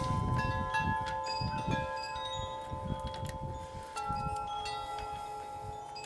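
Wind chimes ringing: several long tones of different pitches overlapping and slowly fading, with a new tone coming in about four seconds in. Faint clicks and low rumbles sit underneath.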